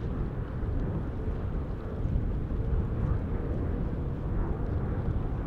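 Jet airliner engines, a steady low rumble with a faint hum, mixed with wind on the microphone.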